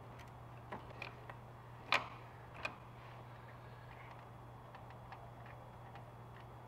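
A ratchet and Torx socket clicking and tapping on the high-pressure fuel pump's E8 Torx fasteners: a few sharp, irregular metallic clicks, the loudest about two seconds in, then fainter scattered ticks. A steady low hum runs underneath.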